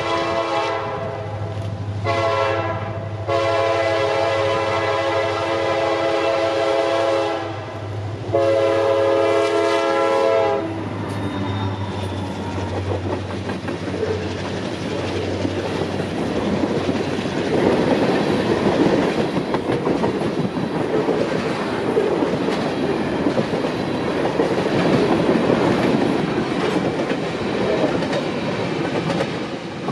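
Diesel freight locomotive's horn sounding in several long blasts during the first ten seconds. Then a train of tank cars rolls close by, its wheels clattering and rumbling on the rails, growing louder in the second half.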